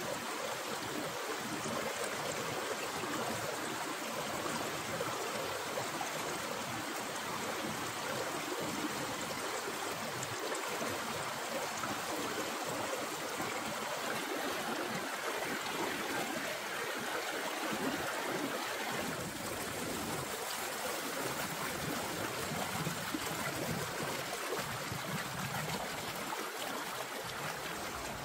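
River water flowing with a steady rushing sound.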